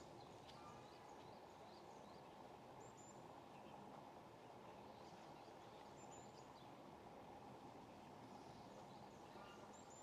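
Near silence: faint steady outdoor background noise, with a short, high bird chirp about every three seconds.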